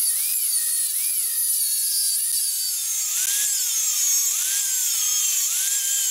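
Angle grinder with a thin cut-off disc cutting slits into a steel ring clamped in a vise: a high hissing grind over the motor's whine, which sags in pitch each time the disc bites into the cut and climbs back as it eases.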